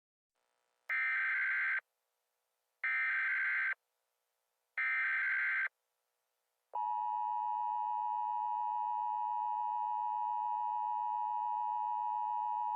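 Emergency Alert System broadcast tones: three short bursts of the SAME digital header, each just under a second long, followed about seven seconds in by the steady, unbroken EAS attention signal.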